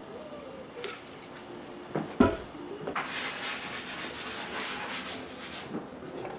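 Potted plants being watered from a watering can with a long, narrow spout. There is a sharp knock about two seconds in. Then, for about two and a half seconds, a rapid scratchy pattering as the water hits gravel and soil.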